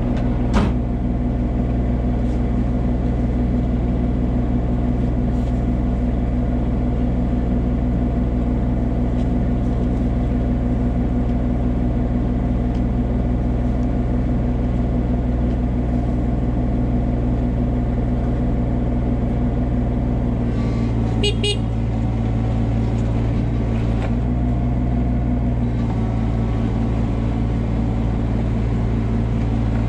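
Komatsu PC16 mini excavator's diesel engine running steadily, with a sharp click about half a second in. About two-thirds of the way through, the engine note shifts and a brief high squeak is heard.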